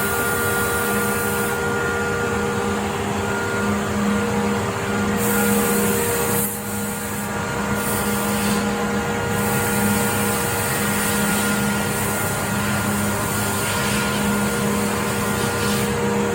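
Weinig Unicontrol 10 CNC wood machining centre running: a steady machine drone with several constant whining tones, dipping briefly about six and a half seconds in.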